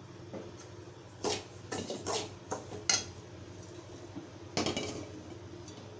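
Metal cooking vessels clanking and knocking as they are lifted off and set down on a gas stove's pan supports: a run of knocks through the middle, the loudest just before three seconds in, and another clatter near the end.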